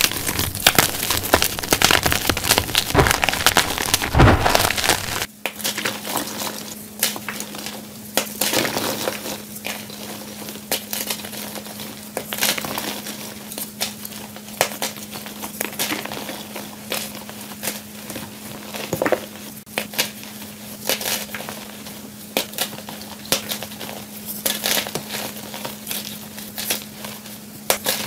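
Blocks of gym chalk squeezed and crushed by hand: dense crunching and crackling as the chalk breaks apart and crumbles into powder. A steady low hum runs under the crunching from about five seconds in.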